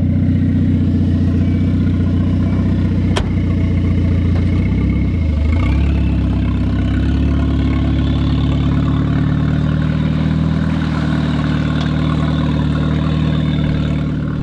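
Turbo Volvo 940's four-cylinder engine running at low, steady revs, its pitch dipping and rising briefly about five seconds in. A single sharp click sounds about three seconds in.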